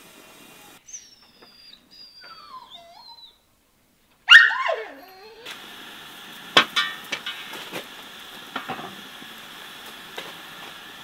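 An animal's high, whining cries falling in pitch, then one loud cry about four seconds in that slides downward. Scattered sharp clicks follow in the last half.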